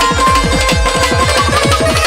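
Instrumental interlude of Bangladeshi Baul folk music with no singing: a held, gently wavering melody line over fast, driving hand-drum strokes.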